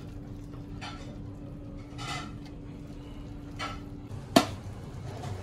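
A metal utensil scraping and clinking against the pot of cooked plov three times, then a single loud metal clank about four seconds in. A steady low hum runs underneath and stops just before the clank.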